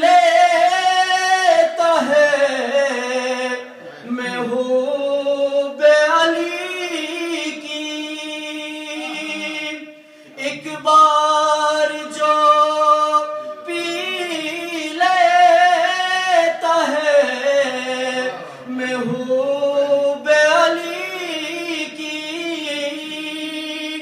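A man singing an Urdu manqabat unaccompanied, in long drawn-out phrases with wavering, ornamented held notes and short breaks between phrases.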